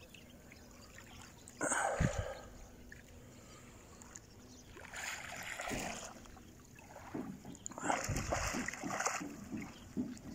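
Sea water splashing in a few short bursts as a swimmer dives head-first into calm water and comes back up. The loudest burst comes about two seconds in, with more splashing around five to six seconds and again around eight to nine seconds.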